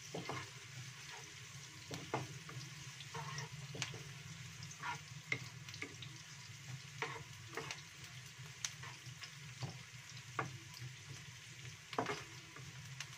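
Sliced shallots sizzling as they fry in oil in a non-stick wok. A wooden spatula stirs them, giving short knocks and scrapes against the pan about once a second.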